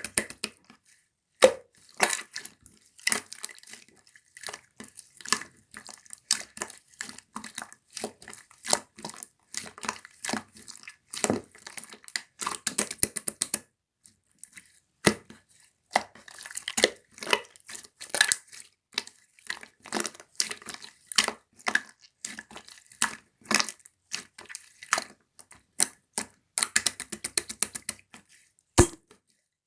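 Slime being squeezed and poked by hand: a run of irregular sticky clicks and pops, with a short pause about halfway through.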